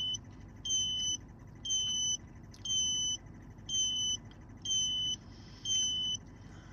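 A car's electronic warning chime beeps about once a second, each beep about half a second long, and stops about six seconds in.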